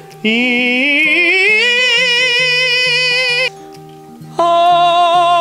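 Solo singing voice showing off its range: a slow upward slide with vibrato over about three seconds, then after a short break a single high note held with vibrato. Soft background music runs underneath.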